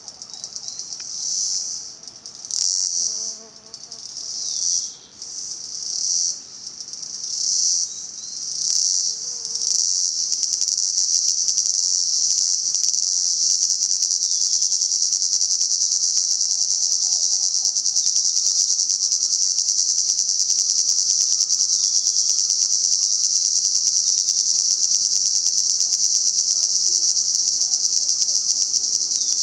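Cicadas buzzing in a high-pitched chorus. For about the first ten seconds it swells and fades in pulses roughly once a second, then settles into one continuous loud drone.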